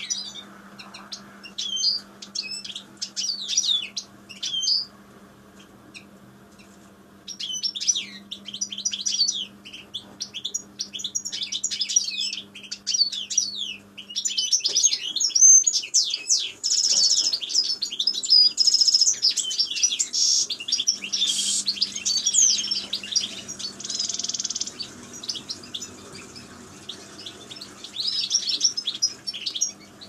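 A small flock of caged European goldfinches twittering, with quick, overlapping chirps. There is a short lull a few seconds in, then the chirping grows busier and louder through the second half.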